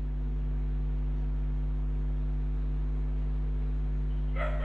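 Steady low electrical hum, pitched at the mains frequency with a stack of overtones. A brief, higher-pitched sound is heard near the end.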